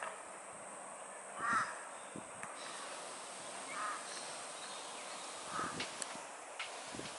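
A bird giving short calls, three times about two seconds apart, over a steady outdoor background.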